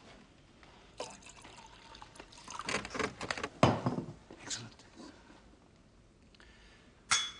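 Liquid being poured into a vessel in uneven spurts, with a knock before it and a short sharp clink with a brief ring near the end.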